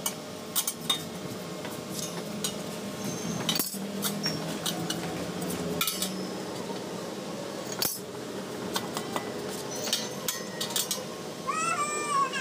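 Stainless steel square tubing clinking and tapping as a frame rail is fitted by hand against a table leg: a run of light, irregular metallic clicks and knocks, some with a short ring.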